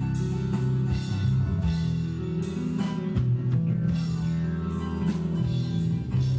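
Live rock band playing an instrumental passage: guitar over a drum kit, with steady drum and cymbal hits.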